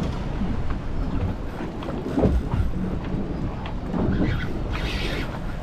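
Steady low rumble of wind buffeting the microphone aboard a small boat, with a short hiss about five seconds in.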